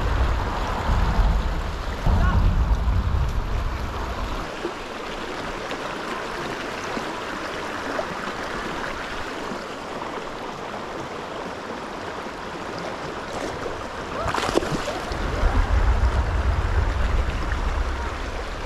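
Shallow river water running steadily over a rocky riffle, with bouts of low rumble in the first four seconds and again near the end.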